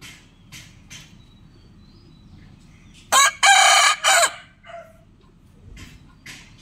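Rooster crowing once, a loud cock-a-doodle-doo in several segments lasting just over a second, about three seconds in. Faint short chirps sound before and after it.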